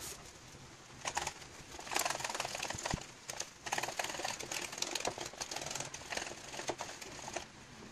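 Wire whisk beating a thick butter-and-cocoa chocolate frosting by hand in a bowl: a rapid, uneven clatter of the wires tapping and scraping against the bowl, starting about a second in.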